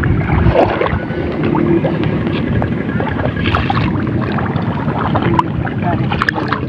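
Wind buffeting the microphone in a steady low rumble, with a few faint clicks on top.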